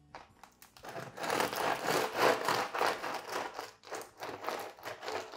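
Bread knife sawing through the crisp, dark-baked crust of a sourdough loaf: a crackling, crunching noise in repeated strokes, starting about half a second in.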